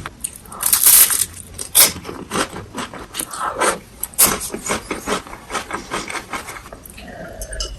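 Crunchy bites and chewing of a crisp, deep-fried cone, with loud crackling crunches about a second in and again near two and four seconds.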